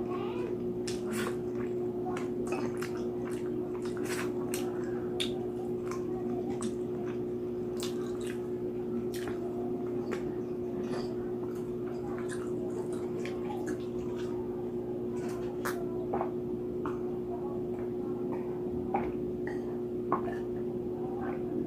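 Close-up mouth sounds of eating roast pig head (lechon): wet chewing and lip smacking with many small irregular clicks. A steady low hum runs underneath.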